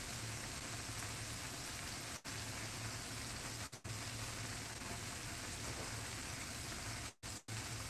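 Breaded chicken pieces deep-frying in hot oil in a pan: a steady crackling sizzle, with a low steady hum underneath. The sound cuts out for an instant a few times.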